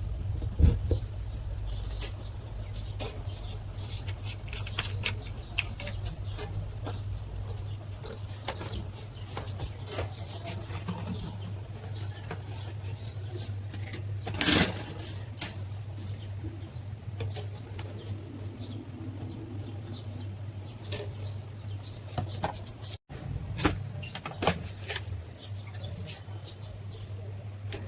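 Light metallic clicks and rattles of wall-fan parts being handled, with two louder knocks, one about a second in and one halfway through, over a steady low hum.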